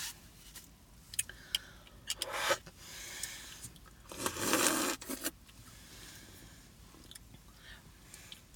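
Quiet eating sounds from a hot fudge sundae: a few light clicks and scrapes, chewing, and soft rustles, the longest one about four seconds in.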